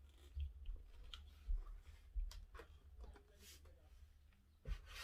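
Plastic parts of a cordless stick vacuum being handled and fitted together: a few light clicks and knocks spread through, over a low handling rumble.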